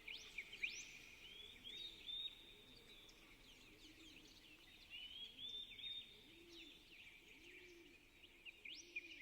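Faint birdsong: many quick high chirps and rising whistles from several birds, with a lower call repeating about once a second underneath.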